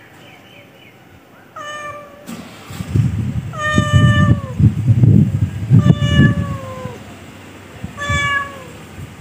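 Cat meowing four times, a few seconds apart, each meow a drawn-out call that drops in pitch at the end. A heavy low rumbling noise, louder than the meows, runs from about three to seven seconds in.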